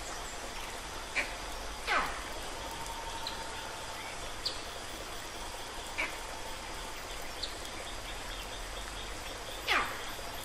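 Animal calls over a steady hiss: scattered short high chirps, and twice a louder whistle that falls quickly from high to low.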